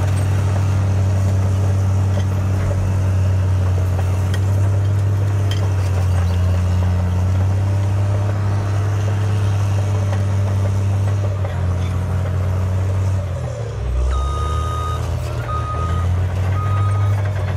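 Cat D7R Series 2 bulldozer's C9 diesel engine running with a steady deep drone. About 13 seconds in the engine note dips and shifts pitch, then a backup alarm starts beeping about once a second.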